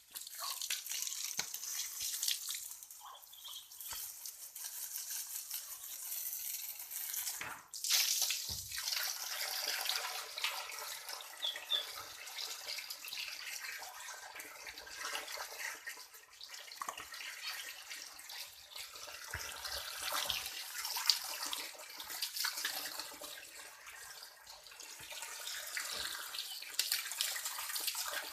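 Wet splashing and trickling water with many small clicks and ticks running through it.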